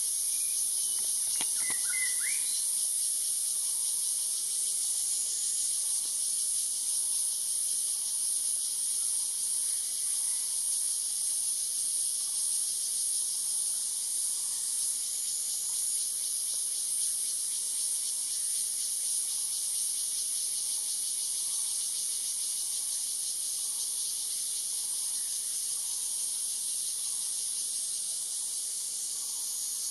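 Steady, high-pitched chorus of insects, with a short bird call about two seconds in.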